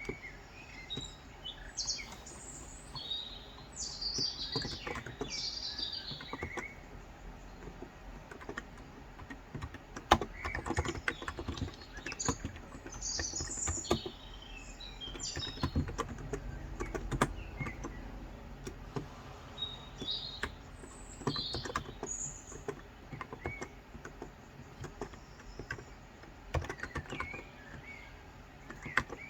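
Typing on a Cox Endeavor electro-capacitive (Topre-style) 35 g tenkeyless keyboard: soft keystrokes in irregular runs, busiest in the middle. Birds chirp over the typing, mostly near the start and again later on.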